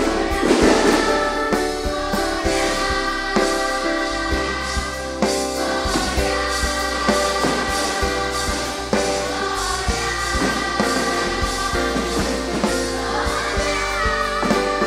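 Music: a choir singing with instrumental accompaniment.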